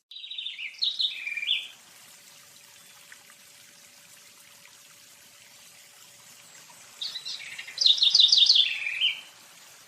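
A small bird singing: a short phrase of quick high chirps at the start, then a longer, louder phrase of rapid chirps about seven seconds in, over a faint background hiss.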